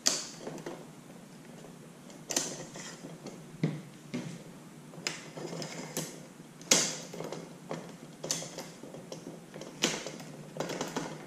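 A steel kayak-cart tube being slid and twisted inside a PVC pipe handle by hand: scraping of pipe on metal, with a sharp click or knock every second or two.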